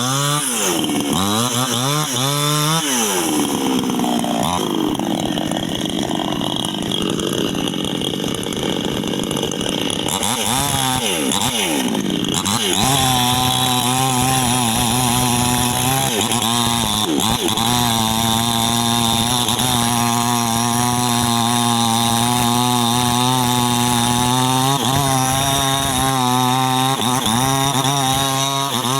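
New West 628 two-stroke chainsaw with a 26-inch bar revving up and down, then running under load with a rougher, sagging engine note as it saws into a durian trunk. From about halfway it holds a steady high rev, with a few brief dips.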